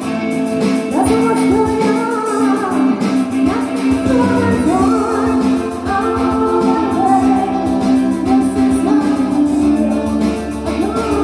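A pop song sung over guitar accompaniment, part of a medley cover.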